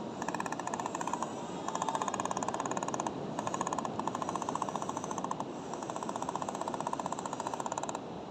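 Excavator working, with a fast mechanical rattle that comes in runs of a second or two separated by short breaks.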